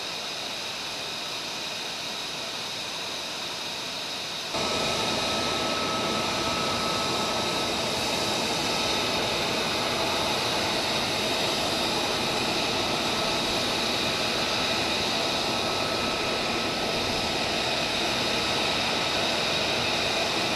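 F-35A jet engine idling: a steady high turbine whine over a rushing hiss, which jumps louder about four and a half seconds in and then holds steady.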